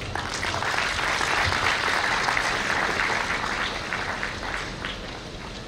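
Audience applauding, building quickly, then thinning out and dying away near the end.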